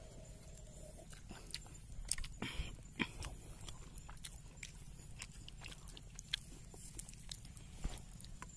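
Irregular small clicks, scrapes and crunches of people eating by hand: fingers scooping cooked rice from pots, and chewing.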